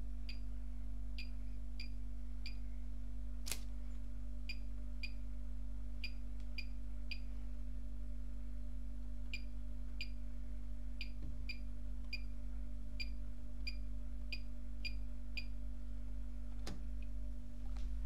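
Bosch Maxx 7 washing machine's control panel giving a short high beep at each button press, about twenty beeps at irregular intervals as the options, temperature and spin speed are set. A single sharp click about three and a half seconds in, and another near the end.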